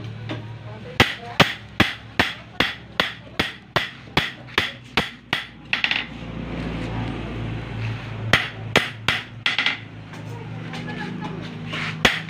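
Ball-peen hammer beating a steel knife blank, cut from a motorcycle brake disc, on an anvil: a fast run of sharp metal strikes, about three a second, then a pause, a short burst of four strikes, and strikes starting again near the end.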